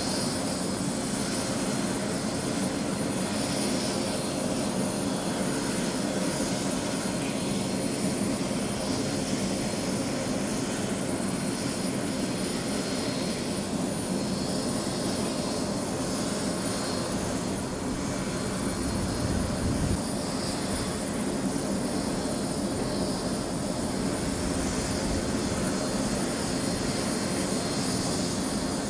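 Turbine helicopter idling on the ground with its rotor turning: a steady engine sound with a thin high whine running through it.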